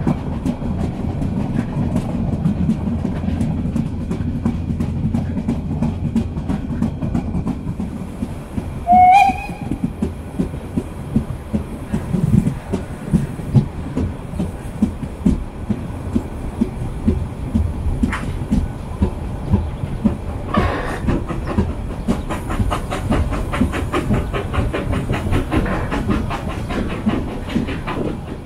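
Narrow-gauge steam train of the Molli line running, heard from a carriage window: low rumble with the wheels clicking over the rail joints. About nine seconds in, the steam whistle gives one short blast. From about two-thirds of the way through, the clicking grows quicker and more even.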